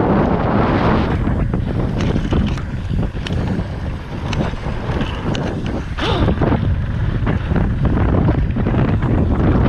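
Wind rushing over the microphone as a mountain bike descends a dirt trail at speed, with the tyres running over dirt and the bike rattling in short, irregular clicks.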